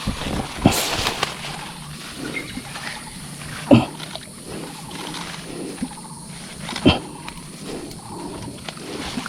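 Water splashing and sloshing as a hooked bass is pulled in through weeds, with three sharp splashes about three seconds apart.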